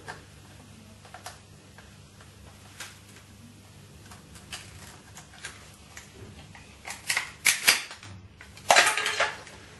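Scattered light clicks of a Phillips screwdriver undoing a small screw in a plastic telephone casing. Near the end come a run of louder plastic clicks and a clatter as the casing is handled and opened.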